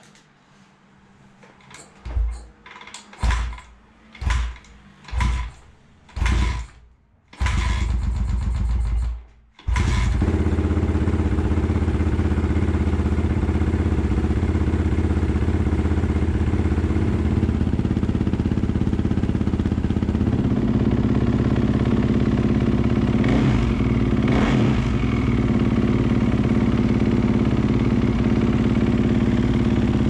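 Dirt bike engine being started: five short bursts about a second apart, a brief run that dies, then it catches about ten seconds in and runs steadily, warming up its oil.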